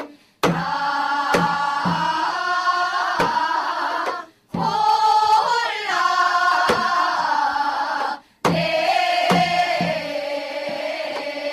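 A chorus of women and children singing a Gyeonggi-style Korean folk song (gyeonggi minyo) in unison, with sharp janggu hourglass-drum strokes marking the beat. The singing comes in phrases, with a brief breath break about 4 seconds in and again about 8 seconds in.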